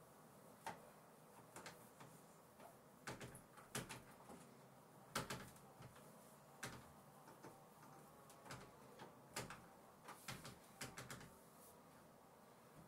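Damp cloth wiping the glass of a PVC balcony door, giving a string of short, irregular squeaks and soft knocks against the pane and frame.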